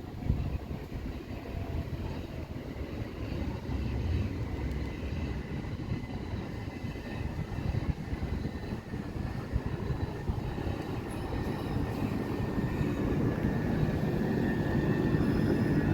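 Electric commuter train on the railway, a low rumble that grows louder toward the end with a faint steady whine over it.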